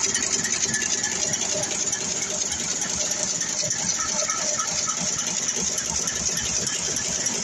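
Automatic LED insertion machines running: a fast, steady mechanical clatter from the insertion heads cycling, over a constant high hiss.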